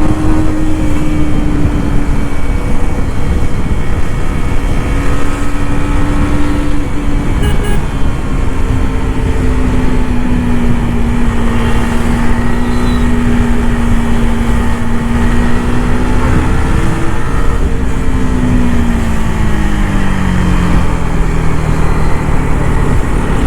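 KTM Duke 250's single-cylinder engine and stock exhaust on the move, holding a steady note at part throttle. For about the last six seconds the note falls smoothly as the throttle is rolled off and the bike slows.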